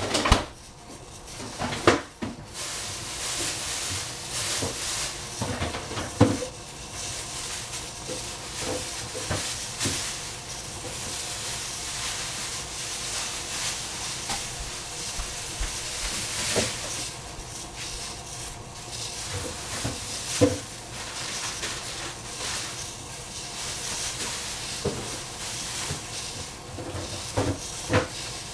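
Steady hiss of shrimp cooking in a pan on the stove, with scattered knocks and clatter of kitchen things, the sharpest about 2, 6 and 20 seconds in.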